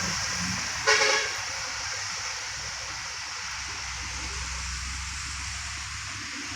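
A vehicle horn gives one short honk about a second in, over steady traffic noise with a low engine rumble that builds in the second half.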